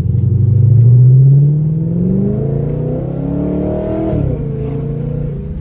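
Dodge Charger engine under hard acceleration, revs climbing steadily for about four seconds, then dropping sharply at an upshift and starting to climb again in the next gear.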